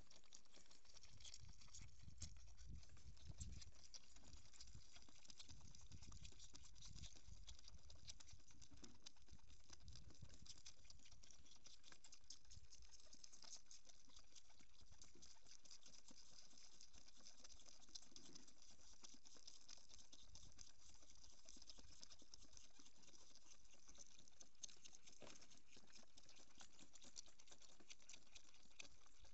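Two goat kids sucking milk from rubber teats on hand-held bottles, a faint, rapid run of wet clicking and smacking, with some low handling rumble in the first half.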